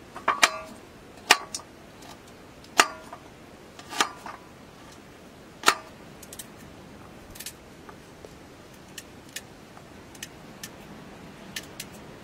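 Carrot rounds sliced off by hand with a small knife dropping into a stainless-steel bowl, each landing with a short clink that rings briefly. Six louder clinks come in the first six seconds, then only faint ticks.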